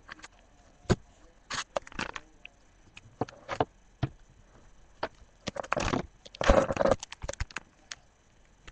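Plastic card-sleeve pages of a trading-card binder being handled and turned: a run of crackling clicks and short rustles, with the longest and loudest rustle about six and a half seconds in.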